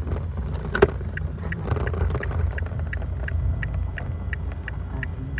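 Inside a car: a steady low rumble with a regular light ticking, about three ticks a second, from the turn-signal indicator. A single sharp click comes just before the ticking starts.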